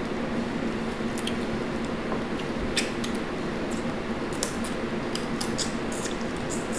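Steady hum of an electric box fan, with scattered small sharp clicks and crackles from cooked blue crab and crawfish shells being picked apart and eaten, more of them in the second half.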